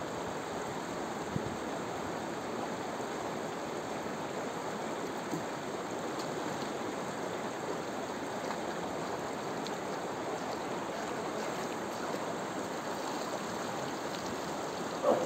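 Shallow river running fast over rocks in small rapids: a steady rushing of water.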